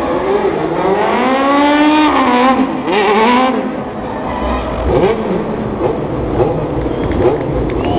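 Car engine revving hard during drifting stunts, its pitch climbing and falling over the first few seconds, then short throttle blips from about four seconds in.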